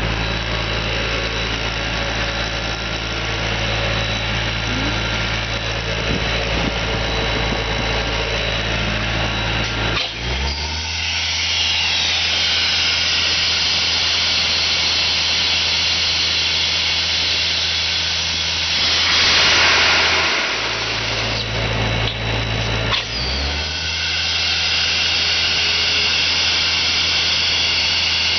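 Skid steer running with a John Deere Worksite Pro BP72 sweeper attachment: a steady engine hum. About ten seconds in its pitch steps and a high whine joins; a loud rushing swell comes around nineteen seconds. The whine drops away briefly, then returns a few seconds later.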